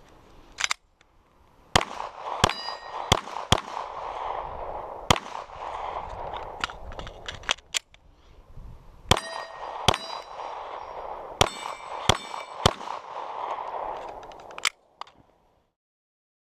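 Strings of 9mm pistol shots from a Glock 34, about fifteen in all, with steel plate targets ringing after several of the hits. A steady hiss runs under the shots, and the sound cuts out shortly before the end.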